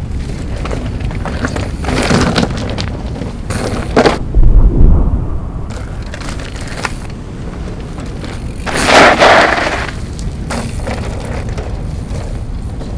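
MSC mountain bike tyres rolling over a dirt trail with a steady low rumble, broken by knocks about two and four seconds in, heavy thuds just after, and a loud gritty rush about nine seconds in.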